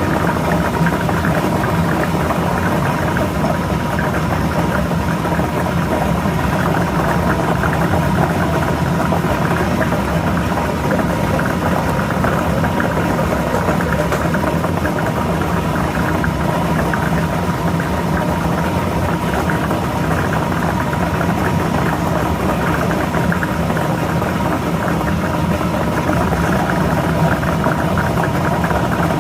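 Lottery ball-drawing machine running steadily: its motor hums while the balls clatter and rattle around inside the mixing chamber.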